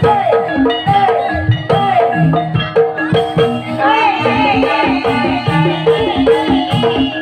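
Live Javanese gamelan music for an Ebeg hobby-horse dance: struck keyed percussion plays a repeating melody over hand-drum strokes. A gliding melodic line sits above them, growing busier about four seconds in.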